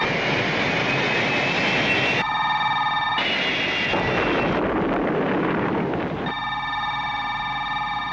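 Science-fiction sound effects: the rushing noise of an Eagle spacecraft's thrusters with a faint rising whine, twice cut off by a steady electronic hum of several tones. About three seconds in comes a deeper, rumbling rush as a blast throws up dust, and about six seconds in the steady electronic hum takes over again.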